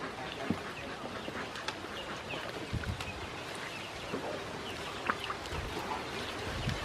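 A group of ducklings peeping, short high chirps scattered throughout, as they feed from a dish in a plastic basin, with occasional sharp taps and low knocks.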